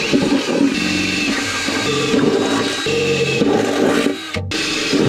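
Cordless drill cutting through sheet-steel floor, its motor pitch rising and falling as it loads, with metal grinding and brief high squeals. The drilling breaks off briefly about four seconds in.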